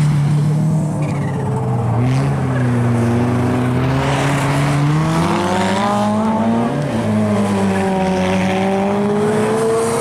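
Rally car engines revving hard on an ice track, the pitch rising and falling with throttle and gear changes, over a hiss of tyres sliding on ice.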